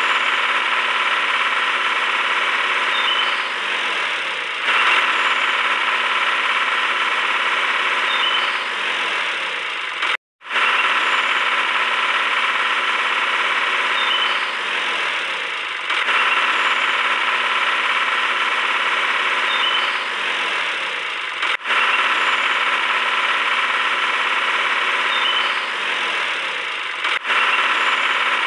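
Small electric hobby motor running steadily with a buzzing whir, driving a toy juicer through a rubber-band belt. The sound cuts out for a moment about ten seconds in.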